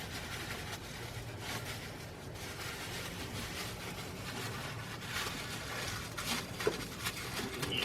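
Faint rustling and handling noises of plastic being pushed into a carburetor's intake, over a steady low hum.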